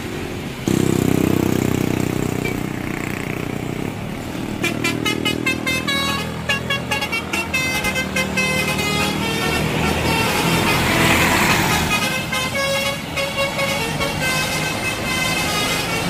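A bus's deep air horn blasts about a second in, followed by a Basuri multi-tone 'telolet' horn playing a fast melody of short high notes.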